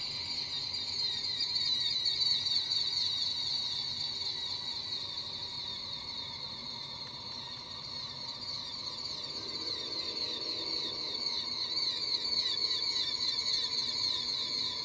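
Manipulated ambient field recording: a steady, high, shimmering drone with fainter held tones beneath it. It swells about two seconds in, eases off through the middle, and swells again near the end.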